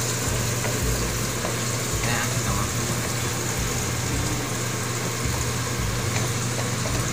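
Chopped onion and garlic sizzling in hot oil in a wok while being stirred with a wooden spatula, over a steady low hum.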